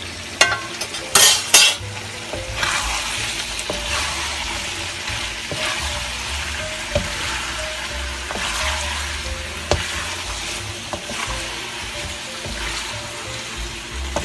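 Beef bourguignon with mushrooms and onions sizzling in a hot pan while it is stirred, the scraping of the stirring swelling about once a second. A few sharp clanks come in the first two seconds.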